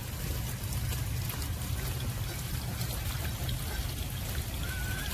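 Water pouring steadily into a pond to top off its water level, a continuous splashing rush.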